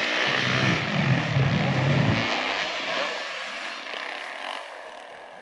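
Motocross dirt bike engine running hard, loudest in the first couple of seconds, then fading away.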